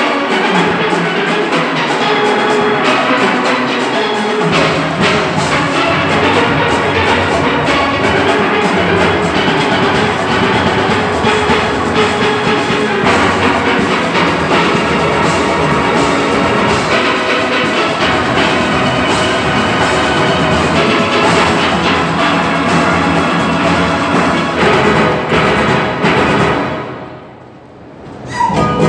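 Large steel orchestra playing live, many steel pans from high tenors down to bass pans sounding together over percussion. The low bass line comes in about four seconds in, and the whole band drops away briefly near the end before coming back in.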